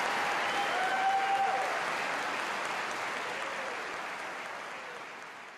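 Audience applauding, fading out over the last few seconds.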